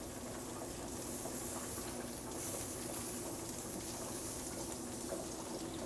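Marinated quail sizzling on a hot grill, a steady hiss, over a low steady hum.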